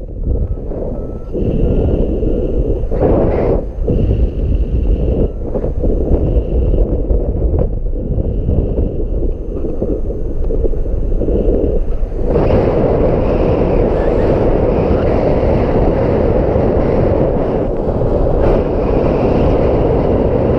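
Strong wind buffeting the microphone: a heavy, gusty rumble that turns steadier and louder about two-thirds of the way in.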